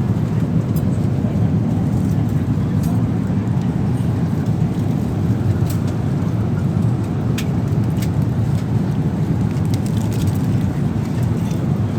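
Steady low rumble of an Airbus A380 cabin in cruise flight: airflow and engine noise heard from a passenger seat, with a few faint clicks.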